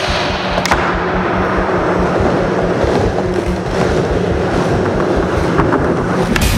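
Skateboard wheels rolling on a skatepark surface, a steady rumble, with a sharp clack of the board at the start and a few more clacks near the end.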